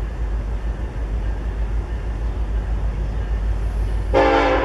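Steady low rumble of an approaching BNSF SD70ACE diesel locomotive hauling a ballast train. About four seconds in, the locomotive's air horn starts sounding, loud and sudden, a chord of several tones.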